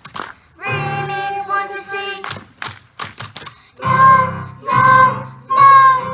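Three young girls singing a children's song into microphones with musical accompaniment and sharp regular beats, building to three loud held notes in the second half.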